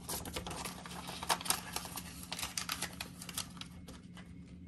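Paper banknotes and the clear plastic zip pouches of a cash budget binder being handled: a quick, irregular run of crinkles and clicks, thinning out over the last second.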